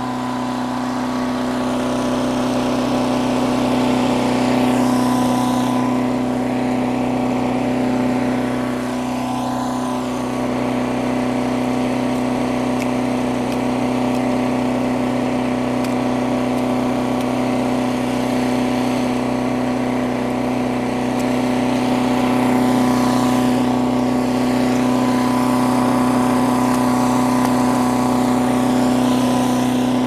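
Harbor Freight gas chipper shredder running steadily, its engine note even throughout, with a harsher grinding noise swelling over it a few times, around five, ten and twenty-three seconds in, as pieces of 2x12 board are fed in and chipped.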